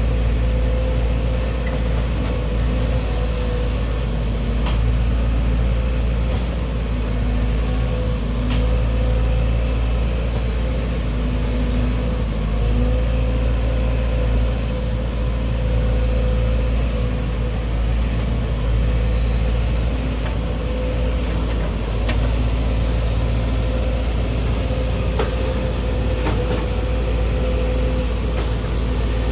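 Heavy diesel engine of a Sumitomo SH210-6 excavator running steadily, with a deep rumble and a steady hum.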